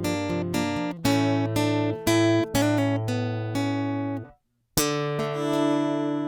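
All-mahogany JCraft Troubadour Taka Mini travel-size acoustic guitar being played: chords picked and strummed, the notes ringing. A little past four seconds in, it stops dead for about half a second, then the playing starts again.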